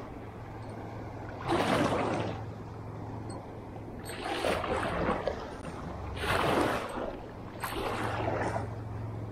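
Small waves washing in and splashing, one every second or two, over a low steady rumble.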